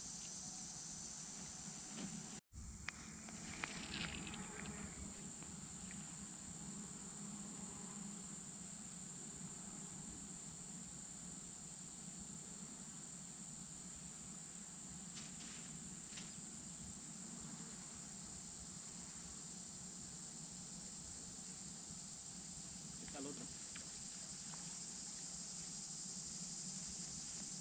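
Steady, high-pitched insect chorus, a continuous drone that briefly cuts out about two seconds in, with a few faint clicks and rustles.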